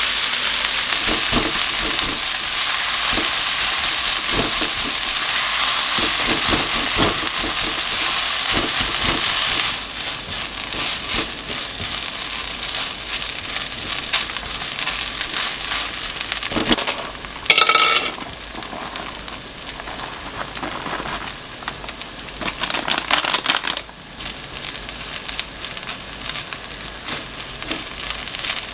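Food sizzling in a frying pan, loud for the first ten seconds or so and then quieter, with scattered clicks and scrapes of a utensil. About halfway through comes a brief ringing clink.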